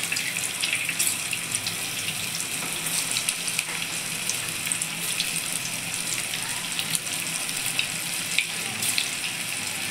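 Raw veg Manchurian balls of grated cabbage and maida deep-frying in hot oil in a steel kadhai: a steady bubbling hiss peppered with many small pops and crackles, as moisture boils out of the freshly added balls.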